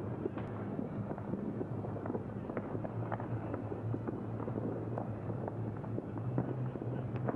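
Fireworks going off: a steady run of irregular pops and crackles over a low, steady hum.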